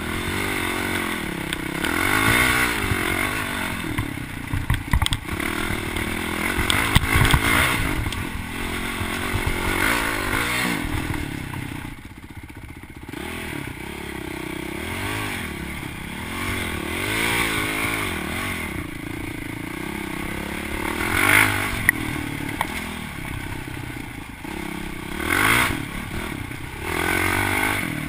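Dirt bike engine revving up and down over and over as the rider works the throttle on a rough trail, with knocks and clatter from the bike over the bumps. The revs drop off briefly a little before halfway, and several sharp bangs stand out near the end.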